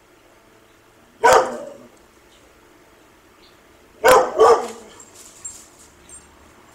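Dog barking: one bark, then about three seconds later two quick barks in a row.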